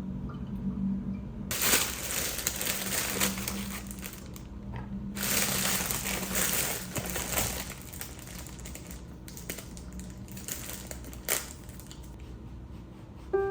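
Crinkling and rustling in two long stretches of a few seconds each, then a few scattered light clicks, over a low steady hum.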